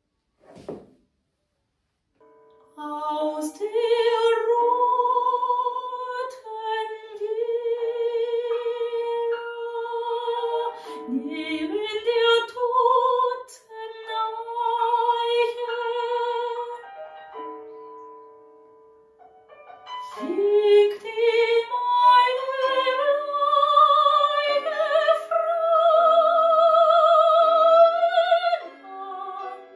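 Soprano singing classical art song or aria with wide vibrato, accompanied by piano. Singing starts a couple of seconds in. The voice rests briefly about two-thirds of the way through while the piano carries on, then comes back scooping up into a note.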